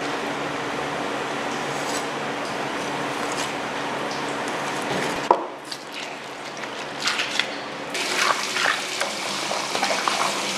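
Steady running water over the sounds of a knife filleting a large mahi-mahi on a cutting board. There is a single sharp knock about halfway through, and a flurry of clicks and clatter near the end.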